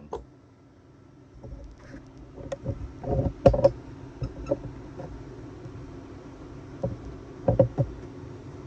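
Scattered metal knocks and clinks of a steel saw chain and tools being handled at a bench vise, a cluster of them around the middle and a few more near the end, over a steady low hum.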